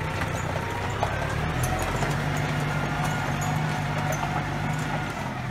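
Kioti DK55 tractor's diesel engine running steadily as the tractor drives off, its note rising a little about a second and a half in, with the steel tire chains clinking lightly as the wheels turn.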